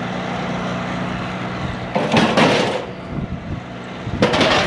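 Vehicle engine idling with a steady low hum, broken about two seconds in and again near the end by loud bursts of rushing noise.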